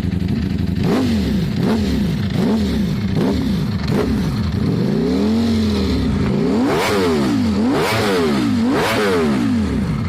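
Ducati V4 S V4 engine on its stock exhaust, revved from idle in a run of blips: five quick ones, one longer rev in the middle, then three higher revs before it drops back to idle.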